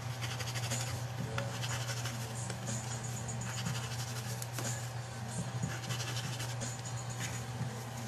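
Ink blending tool scrubbing distress ink onto the edges of cardstock: a dry scratching of quick repeated strokes, over a low steady hum.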